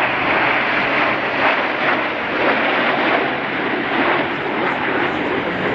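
Steady rushing jet noise from a formation of nine Canadair CT-114 Tutor jets, each powered by a single J85 turbojet, flying past overhead.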